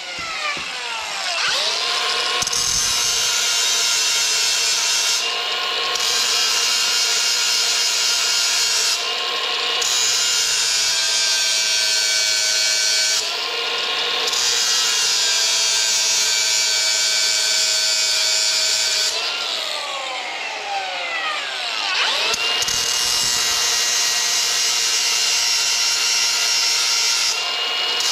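Cordless angle grinder grinding the carbide teeth of a stump grinder's cutter wheel: a steady motor whine with the harsh rasp of the wheel on carbide, easing off briefly a few times as it moves between teeth. About two-thirds through it spins down and then starts up again.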